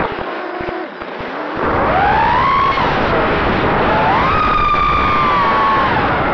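Brushless motors of a racing quadcopter (Emax RS2205 2300kv) whining, heard through the onboard camera with rushing wind noise. The throttle eases off briefly at the start, then the whine rises twice in pitch, holds high, and falls away near the end.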